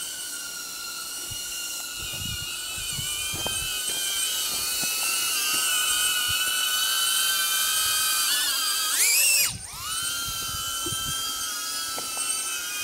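DJI Avata FPV drone's ducted propellers whining steadily as it hovers. About nine seconds in the whine rises sharply in pitch, cuts out for a moment, and settles back to its steady note.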